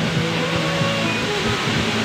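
Steady rush of a tall waterfall, with music playing over it.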